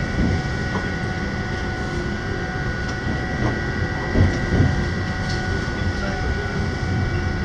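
Passenger train coach rolling slowly into the station, heard from inside: a steady low rumble of wheels on rail with a steady high whine, and a few knocks over rail joints, the strongest about four seconds in.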